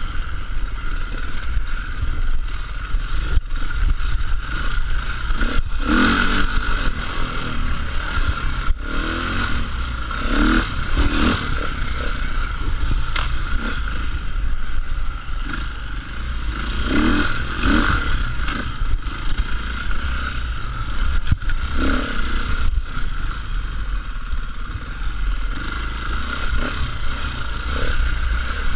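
Enduro motorcycle engine running as it is ridden through scrub, revving up in bursts several times, heard close up from the bike. Brush and branches scrape against the bike, and parts clatter over the rough ground.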